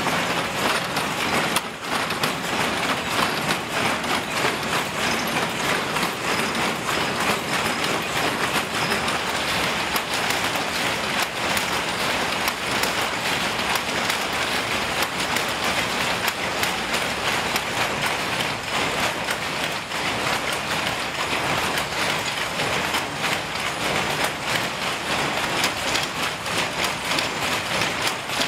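Mechanical power looms weaving blanket cloth, clattering continuously with a dense, rapid run of knocks and clicks.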